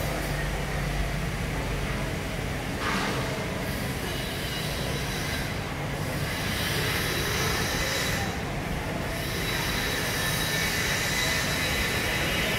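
Steady mechanical drone from the ventilation fans and exhaust ducts over the hawker stalls, with a thin, high-pitched whine that grows stronger in the second half.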